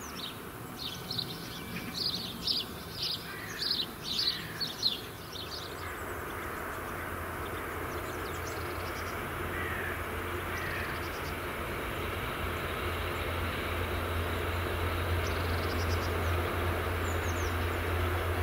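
Small bird chirping repeatedly for the first five seconds. Then a distant diesel train approaches, a steady low hum and rumble growing gradually louder.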